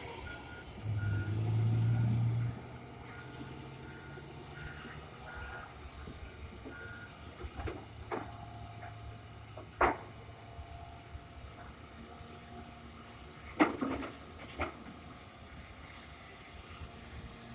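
Heavy equipment backup alarm beeping over a steady running engine. There is a loud low drone for about a second and a half near the start, and a few sharp knocks in the second half, the loudest two about ten and fourteen seconds in.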